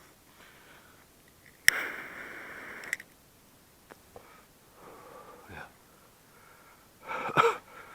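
A person sniffing sharply close to the microphone, a hiss that starts suddenly about two seconds in and lasts just over a second. A shorter, fainter breath or mumble follows near the end.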